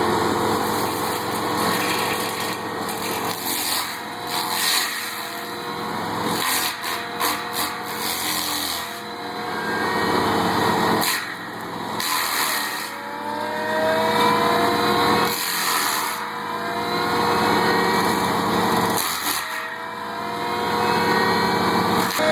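An engine running under load and revving repeatedly, with rising whines several times and scattered sharp knocks.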